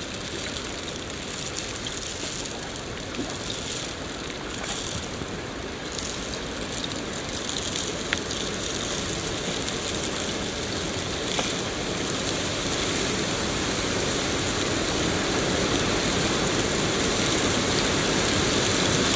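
Steady rain falling, a dense even hiss that grows slowly louder toward the end.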